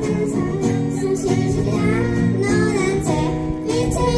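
Children and a woman singing a song together live, accompanied by an acoustic guitar.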